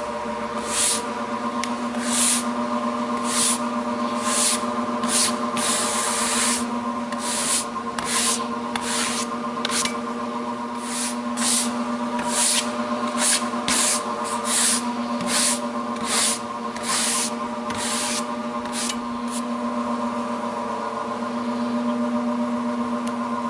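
Homemade sawmill running as it cuts a log: a steady motor hum under a string of short, irregular hissing bursts that stop about three-quarters of the way through.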